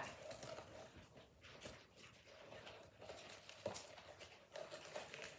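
Faint rustling and a few light knocks of hockey gear being handled as shin pads are taken off a gear rack.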